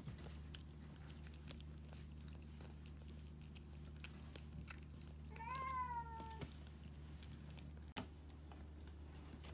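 A cat meows once, a single call about a second long that falls slightly in pitch, over a faint steady low hum.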